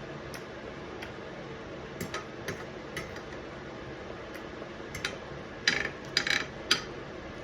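Knife and fork clicking and scraping on a plate: scattered light clicks, then a louder cluster of clinks and short scrapes near the end.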